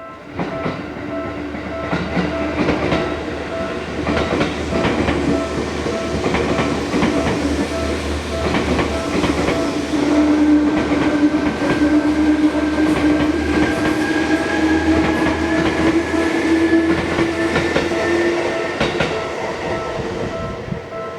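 An electric train passes a Japanese railroad crossing while the crossing's warning bell rings in an even, repeating clang. The train's motor gives a whine that rises slowly in pitch, and its wheels click over the rail joints.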